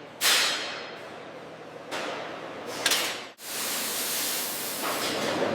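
Hissing noise without any tone, in several sections. It starts suddenly just after the start and fades, steps up about two seconds in, cuts off abruptly just past halfway, then resumes steadily.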